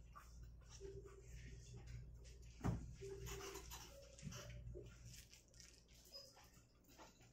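Faint classroom handling noise: paper rustling and light scrapes as worksheets are passed out and handled, with one dull thump a little under three seconds in, over a steady low room hum.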